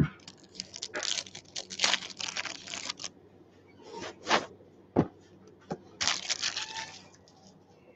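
Trading card packs and boxes being handled: paper and foil wrappers rustling, crinkling and tearing in two spells, with a few sharp taps of card stock between them.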